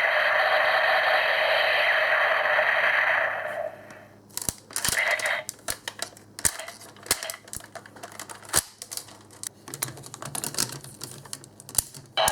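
Kyoryuger electronic toy playing a steady hissing, buzzing electronic sound effect that stops after a few seconds. Then sharp, irregular plastic clicks as the toy is handled and a Zyudenchi battery is worked in it.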